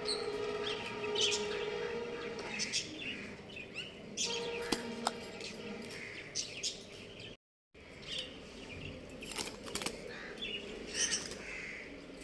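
Birds chirping and tweeting in short, scattered calls, with a steady hum underneath during the first two seconds and again around four to five seconds. The sound cuts out completely for a moment just past seven seconds.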